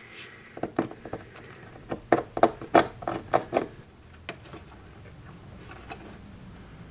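A run of small sharp clicks and light scrapes, about a dozen over three seconds, as a model railway signal's forks are worked in between the sleepers and ballast under the rail. Then it goes quiet apart from a faint hiss.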